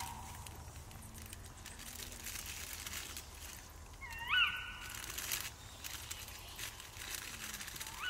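Faint rustling and crinkling of a plastic bag being handled and passed around. A short high sound rises and then holds briefly about four seconds in, and a similar one comes near the end.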